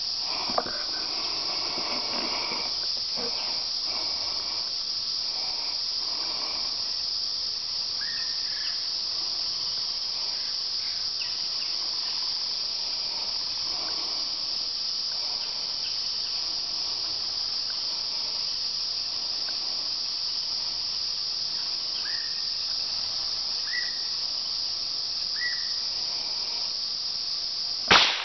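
Steady, high-pitched insect chorus droning in summer woods, with a few short bird chirps. Right at the end comes one sharp crack: a single shot from a .22 rifle.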